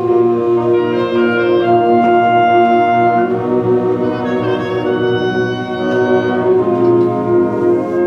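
High school concert band playing a full-ensemble passage: held brass-heavy chords with shorter, higher notes moving above them.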